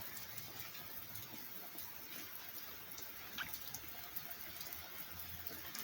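Light rain falling and dripping: a faint, steady hiss with scattered small drip ticks.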